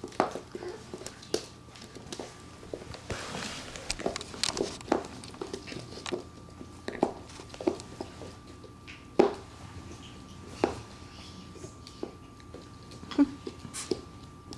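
Puppies chewing and nosing a rubber toy and moving about on a wooden floor: scattered light clicks and taps, with a few louder knocks.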